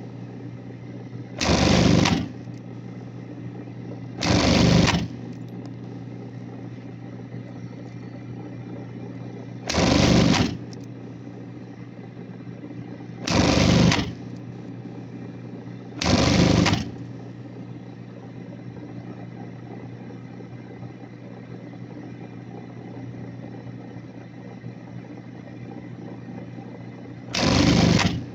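Industrial sewing machine stitching in six short bursts of about a second each, over the steady hum of its motor between runs.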